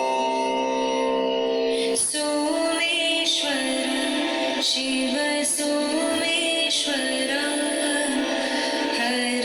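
Background music: a held, droning chord, then about two seconds in a melody with singing begins over it.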